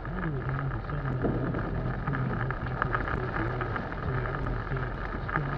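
Rain hitting a car's windshield as the car drives on a wet road, heard from inside the cabin, with steady engine and tyre noise underneath.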